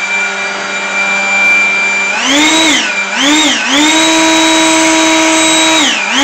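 Einhell GP-LB 18/200 Li E cordless 18 V leaf blower, its brushless motor and axial fan running with a loud whine. About two seconds in it is throttled up to a higher pitch, dips and surges twice in quick succession, holds at full speed, then drops briefly near the end and climbs back up.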